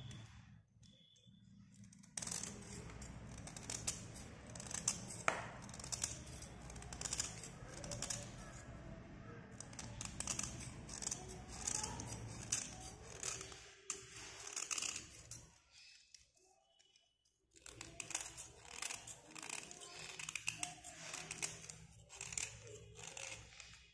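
Cutter blade scraping a slate pencil in quick repeated strokes: a dry, gritty rasp as the slate is shaved off. The scraping pauses briefly about a second in and again about two-thirds of the way through.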